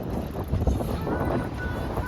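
Wind buffeting the microphone in an uneven, gusty rumble. About halfway through, faint sustained music notes come in over it.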